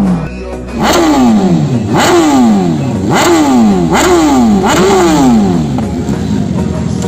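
Motorcycle engine revved in about five quick throttle blips roughly a second apart, each snapping up and sliding back down in pitch.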